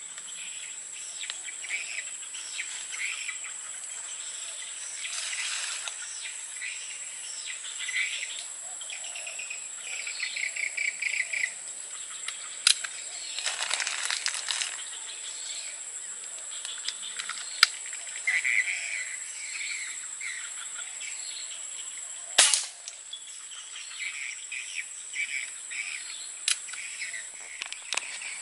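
Tropical forest ambience: a steady high drone of insects with birds chirping repeatedly. Three sharp cracks cut through it, the loudest about 22 seconds in.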